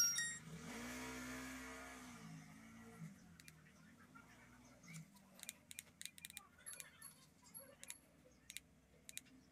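Nokia 105 feature phone powering on: a brief high electronic startup tone, then a low hum for about two seconds. From about three seconds in, a run of quick clicks as its keypad buttons are pressed to scroll the menus.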